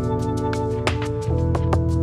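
Background music: a soft instrumental track with sustained notes, a light guitar and a steady beat of ticking percussion.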